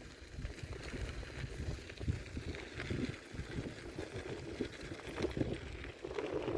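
Irregular knocks and rattles of movement over rough, rocky ground, with a light hiss of wind behind them.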